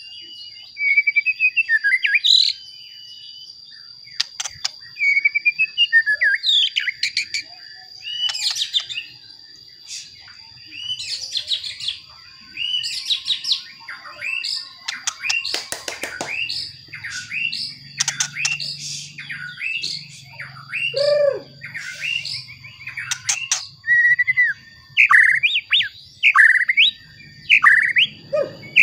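White-rumped shama singing: loud, varied phrases of clear whistles, sliding notes and fast chattering runs, broken by short pauses. A steady high-pitched tone runs underneath, and a low hum joins about halfway through.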